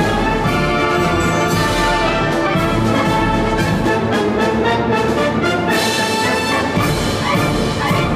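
Orchestral theme music with prominent brass, loud and continuous.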